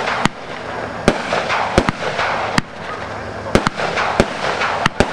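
Fireworksforall Purple Sunset consumer firework cake firing: about ten sharp bangs at uneven intervals, with a continuous hissing crackle from the burning stars between the shots.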